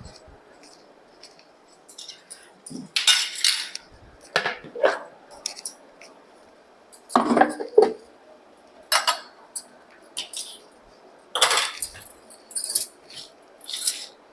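Metal cookware and utensils clattering and scraping in short irregular bursts every second or two, with a few sharp clinks.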